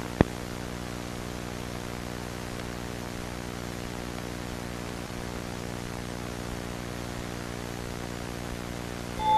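Steady electrical hum over a haze of hiss, like the hum and static of an analog VHS tape, with one sharp click just after the start.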